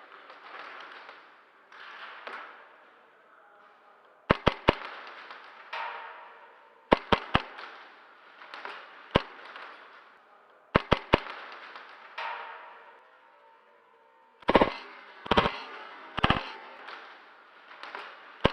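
Airsoft guns firing: sharp cracking shots, mostly in quick groups of three with a few singles, then three heavier, longer bursts about a second apart near the end.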